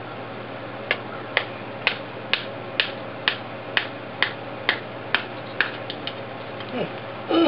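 Hammer tapping the handle of a screwdriver to drive it through a 3S lithium-polymer battery pack: about a dozen sharp, even taps, roughly two a second, growing lighter after about five seconds. A louder knock comes near the end.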